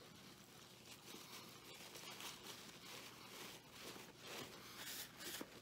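Faint, irregular chewing of a mouthful of bacon cheeseburger: soft wet clicks and squelches with the mouth closed.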